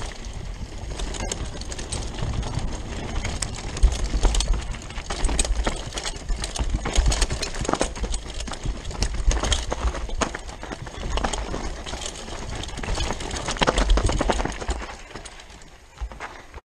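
Rockrider 540S ST mountain bike descending a rough forest dirt trail at speed. The tyres roll over dirt, and the chain and frame rattle with frequent sharp clatters over low rumbling thumps from the bumps. It gets quieter near the end.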